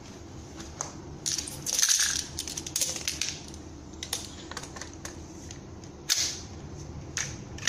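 Parts of a baby crib being handled and fitted together during assembly: irregular bursts of clattering and clicks, the loudest about two seconds in, with single knocks later on, over a steady low hum.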